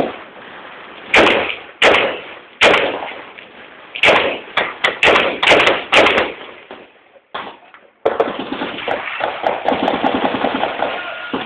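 Gunfire: a series of sharp shots, single and in quick runs, then after a brief break a continuous dense rattle of fast pulses.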